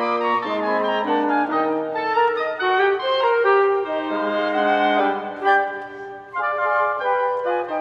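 Wind quintet of flute, oboe, clarinet, bassoon and alto trumpet playing a Cuban dance arranged from a piano original, several lines sounding together. The music briefly drops away about six seconds in, then the ensemble comes back in together.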